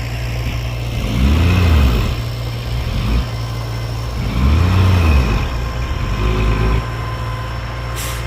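Heavy diesel engine of earthmoving equipment running, revving up and back down twice over its steady low idle. A brief high hiss comes just before the end.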